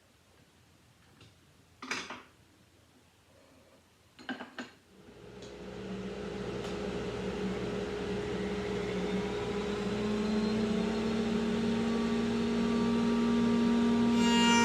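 Two short knocks, then about five seconds in a woodworking router for rounding over the edges starts, builds up to speed and runs on steadily with a constant motor whine.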